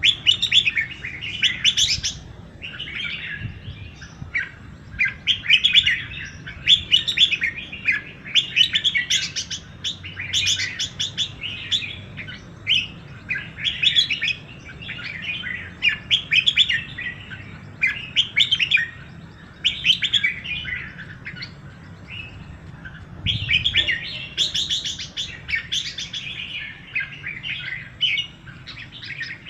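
Small birds chirping and twittering in an unbroken run of short, high phrases, a new burst every second or two.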